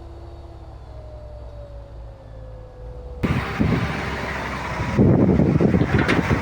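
Bulldozer engine running at a steady low drone. About three seconds in the sound jumps abruptly to a loud, rough, crackling rumble, which gets louder again shortly before the end.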